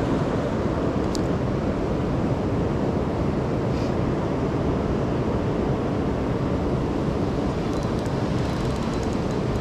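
Steady rush of fast river water around a wading angler, with wind buffeting the microphone. A few faint ticks sound near the end.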